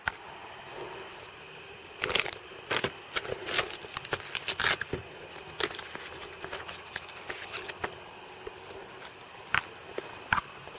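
Handling noise: scattered sharp clicks and rattles, loudest about two seconds in.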